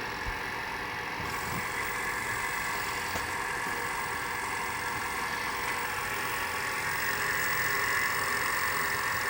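LMS 3900 HiTorque Mini Mill running steadily with the spindle turning, a steady machine hum with a high whine. A faint higher hiss joins about a second in.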